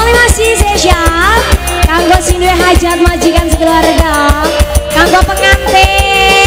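Live dangdut band music played loud through a stage PA: a woman sings a bending, ornamented melody over keyboard and a fast, steady drum beat.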